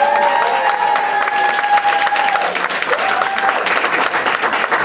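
Audience of parents applauding with dense clapping. Over it, a long cheer rises and is held for about two and a half seconds, and a shorter one rises about three seconds in.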